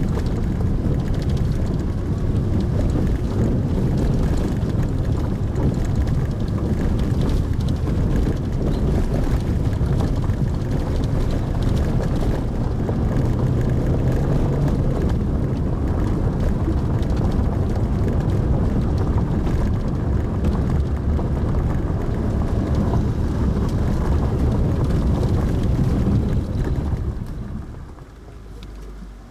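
Pajero Mini driving noise heard from inside the car: a steady low rumble of engine and tyres on the road. It falls away sharply near the end.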